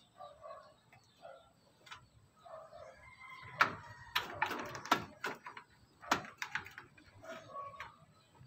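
Sharp plastic clicks and knocks as a CPU 12 V power cable connector is handled and pushed into its socket on a desktop motherboard inside a metal case. The clicks come in a run in the middle, several close together.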